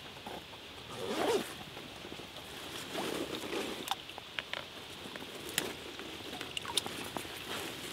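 A wet carp weigh sling rustling and water sloshing and dripping as a carp is lowered back into the lake margin. There are two swells of rustling and slosh, about a second in and around three seconds in, then scattered sharp drips and small splashes.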